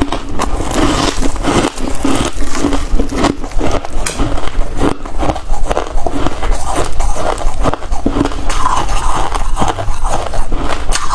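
Freezer frost being bitten and chewed close to the microphone: a dense, continuous run of crunching and crackling, with no pauses.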